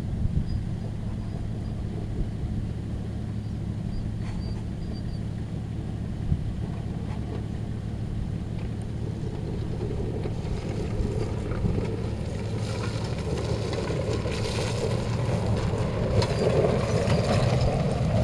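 Polaris ATV engine running as the quad rides down a dirt hillside, faint and distant at first and getting steadily louder as it comes nearer over the second half.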